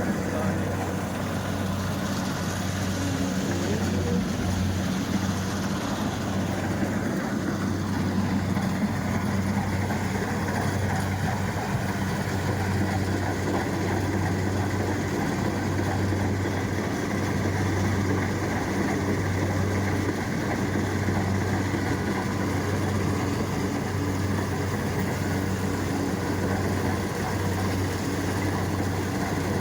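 Kubota rice combine harvester running steadily as it cuts and takes in rice, an even low engine drone with a constant hum.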